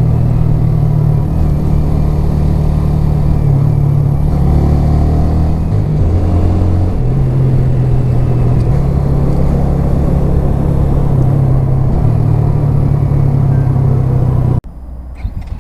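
Suzuki GN125H's single-cylinder four-stroke engine idling steadily, its low pitch shifting slightly now and then. The sound cuts off suddenly near the end.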